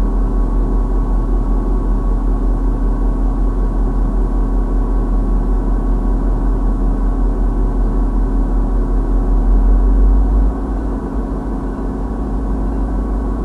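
Steady low engine drone at idle with a constant hum over it. It swells slightly and then drops a little about ten and a half seconds in.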